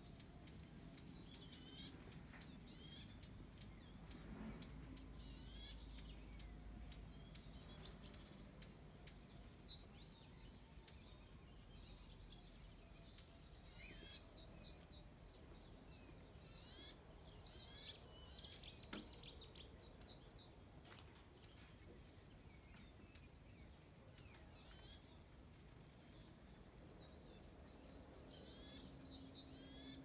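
Small songbirds chirping and twittering faintly in many short, repeated calls, over a low steady background hum.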